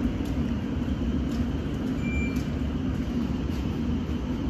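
Steady low hum of a London Underground S-stock electric train standing at the platform, with a short high beep about two seconds in.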